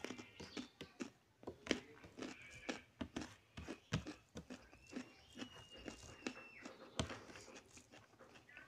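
A bare hand mixing rice into chicken curry on a plastic plate, making irregular wet squishing sounds and sharp clicks.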